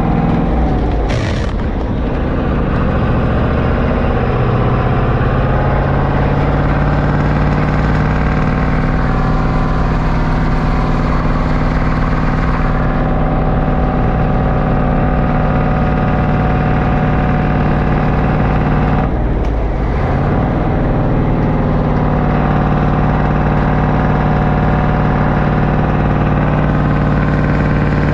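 Cummins V-555 'Triple Nickel' V8 diesel of a 1972 Brockway 358 truck running steadily under load while driving, heard from inside the cab. Its note dips briefly near the start and again about two-thirds of the way through, then picks back up.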